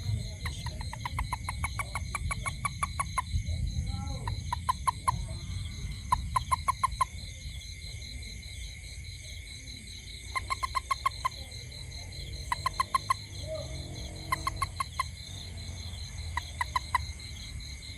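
A toad calling in repeated bouts of rapid, evenly spaced croaking pulses, about five a second; the first bout runs a couple of seconds and the later ones are shorter, under a second each. A steady high chorus of insects runs underneath.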